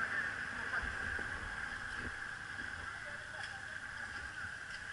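Steady rush of a shallow river running over small rapids, with a brief low rumble about a second in.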